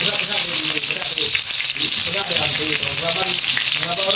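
Freshly pounded shallot, garlic and lemongrass paste sizzling and crackling steadily in hot oil in a wok.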